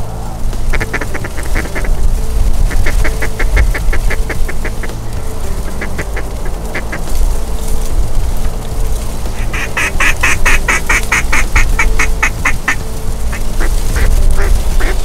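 Mallard quacking in several quick runs of evenly spaced notes, the longest and loudest run about ten seconds in. Underneath is a steady low rumble of strong wind on the microphone.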